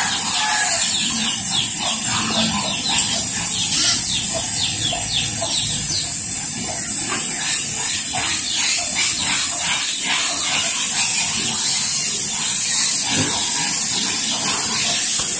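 Steady hiss of a water jet from a hose spray lance, spattering on pigs and a concrete pen floor as fattener pigs are washed down.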